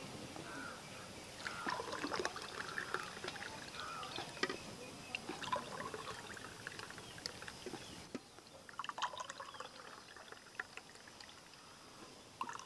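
Thick milkshake poured from an aluminium pot into glass tumblers: a faint, irregular splashing trickle.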